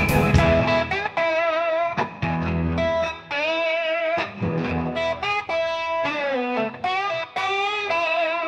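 Background music: an electric guitar plays a lead line of sustained, bending notes over a bass line.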